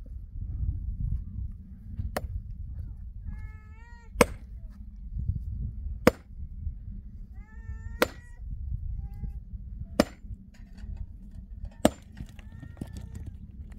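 A pick strikes rock and stony ground six times, one sharp strike about every two seconds. An animal gives short pitched calls between the strikes, about three times.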